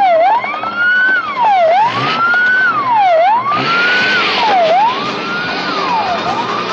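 Police siren on a GAZ-24 Volga militia car wailing up and down: each cycle rises over about a second and falls back quickly, repeating every second and a half. The car's engine and tyre noise run underneath.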